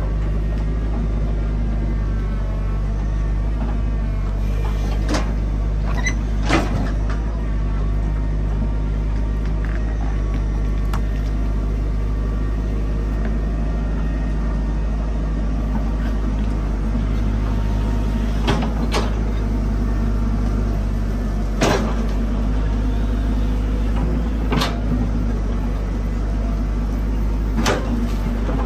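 Caterpillar 312C hydraulic excavator's diesel engine running steadily under load as it digs and spreads loose soil, with several sharp clanks from the bucket and arm linkage.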